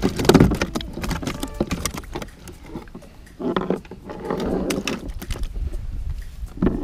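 Knocks, clatter and scraping of hands and gear against a plastic fishing kayak's hull close to the mounted camera, in irregular bursts.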